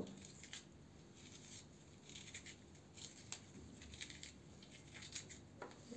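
Faint scraping of the flesh being carved out of a black radish, in short irregular strokes with a few sharper clicks.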